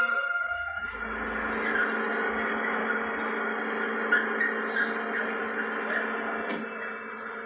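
A steady droning hum of several held tones with a light hiss, setting in about a second in: a film's soundtrack played back from a VHS tape.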